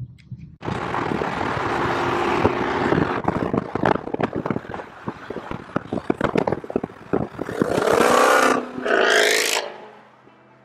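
Dodge Challenger's V8 exhaust under hard acceleration, starting abruptly and crackling; near the end the revs climb twice in quick succession.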